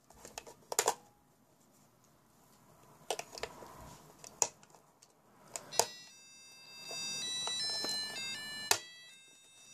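Plastic clicks and knocks of AAA batteries being pressed into a cube LED digital alarm clock. About six seconds in, the clock starts playing a beeping electronic melody of quick stepped notes as it powers up.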